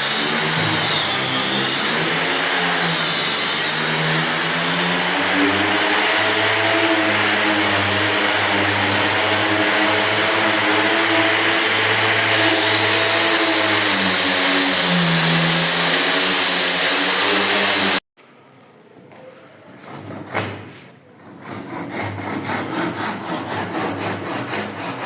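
Angle grinder fitted with a sanding disc, running on wooden doors, its motor pitch wavering up and down as it is worked across the surface. After a sudden cut about 18 seconds in, quieter rhythmic back-and-forth rubbing strokes on wood.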